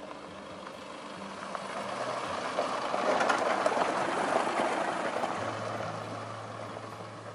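Isuzu MU-X turbo-diesel SUV driving past on a dirt road, its sound rising to a peak about three to four seconds in as it passes close, then fading as it drives away.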